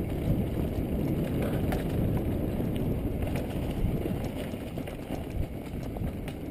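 Mountain bike riding downhill on a dirt and loose-gravel trail, recorded by a GoPro on the rider: a steady, muffled rumble of tyres and wind, with scattered small rattles and knocks from the bike.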